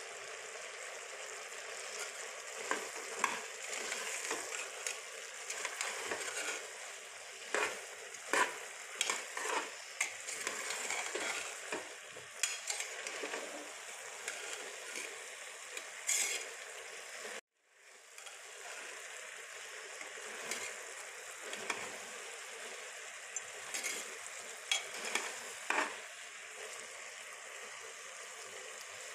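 Boiled chickpeas sizzling in oil in a pan as they are stir-fried with spices, with a spatula scraping and clicking against the pan again and again. Partway through, the sound drops out for a moment.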